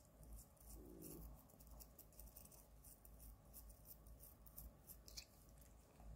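Toothbrush bristles scrubbing a cat's teeth: a quick run of faint, short, high-pitched scratchy strokes.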